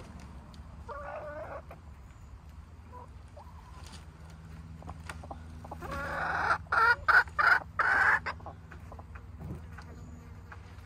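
Domestic hens clucking softly. About six seconds in, a hen close by breaks into a loud run of cackling calls lasting about two seconds.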